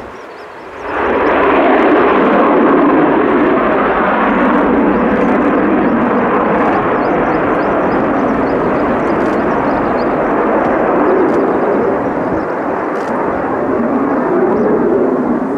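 Military jet engine noise from an aircraft doing a touch-and-go: a loud, steady jet roar that comes in suddenly about a second in and holds.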